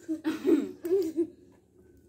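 A girl giggling for about a second.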